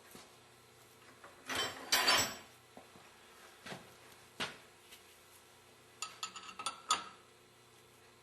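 Metal wrenches clattering and clinking as they are handled, with a short rattle about two seconds in, a single click later, and a quick run of clicks with a brief ring near the end.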